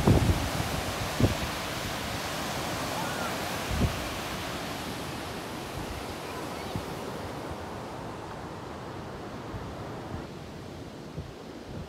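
Steady rush of surf breaking on a lake shore, with a couple of low wind thumps on the microphone in the first four seconds. The rush grows duller and quieter about seven seconds in.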